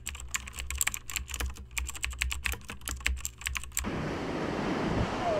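Keyboard-typing sound effect, a rapid run of clicks as on-screen text types itself out. About four seconds in it cuts off and surf washing over rocks takes over, with wind on the microphone.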